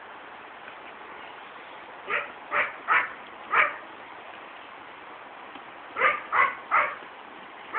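A dog barking in two short runs: four sharp barks, then after a pause three more.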